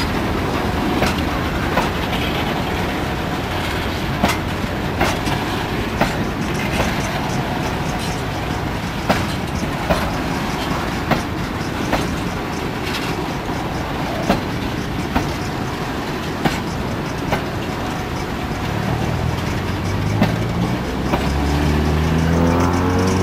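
Freight train of tank cars rolling past close by: a steady rumble with sharp wheel clicks over the rail joints about once a second. Near the end an engine starts to rev, rising in pitch.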